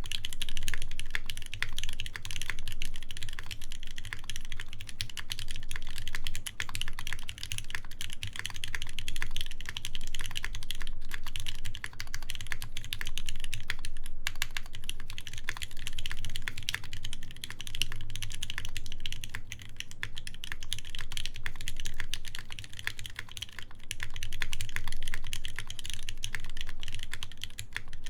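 Continuous fast typing on a Keycult 2/65 mechanical keyboard with a full brass plate, lubed ZealPC Tealios linear switches and GMK keycaps. It makes a dense stream of keystrokes, with a couple of very brief breaks about eleven and fourteen seconds in.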